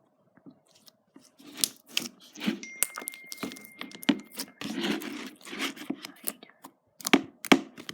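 Clear slime being squished and stretched by hand, making irregular sticky clicks, crackles and pops that start about a second and a half in, with two sharper pops near the end.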